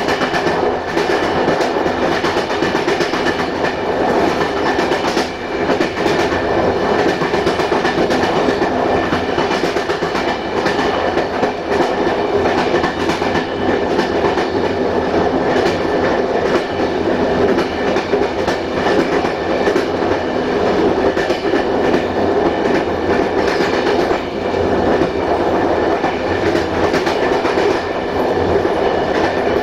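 Passenger train running along the line: steel wheels rolling on the rails with a steady rumble and scattered clicks from the rail joints.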